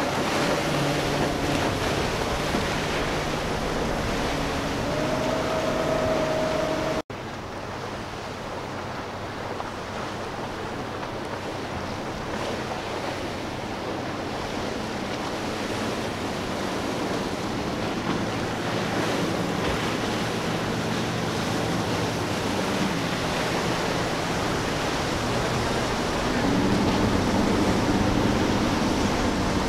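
Outboard motors on center-console boats running at speed through choppy water, their hum under a steady wash of wind and surf. The sound drops out for an instant about seven seconds in, and a louder outboard drone comes up near the end as another boat passes close.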